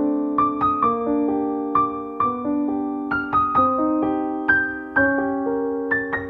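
Background music: a gentle solo piano piece, single notes struck a few times a second and left to ring over sustained lower notes.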